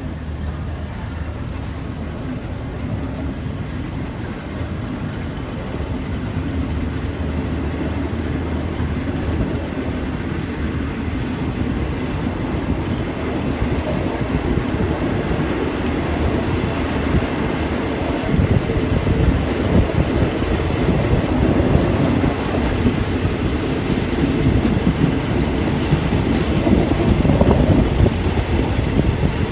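Passenger train running along the track, heard from aboard: a steady rumble of wheels and carriage noise that grows louder over the second half.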